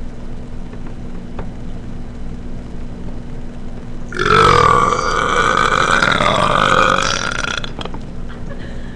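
A single long belch from a young man, lasting about three and a half seconds and starting about four seconds in.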